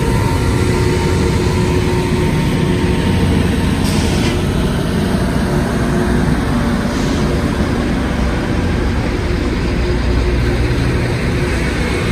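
Loram rail grinder train passing close by, its engines running loud and steady.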